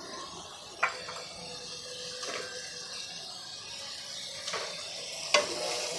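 Hilsa fish pieces sizzling in hot oil and spice paste that has been fried until the oil separates, in a metal pan. A wooden spatula scrapes and stirs, knocking sharply against the pan a few times.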